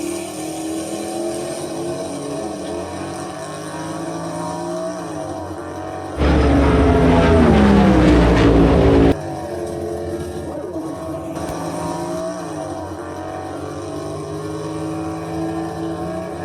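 Car engines running, their pitch rising and falling as they rev. About six seconds in, a much louder stretch of engine sound starts abruptly and cuts off about three seconds later.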